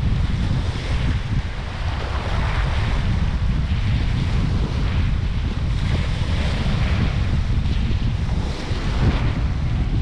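Small sea waves washing in on a sandy beach, their hiss swelling and fading every second or two, with wind buffeting the microphone in a steady low rumble.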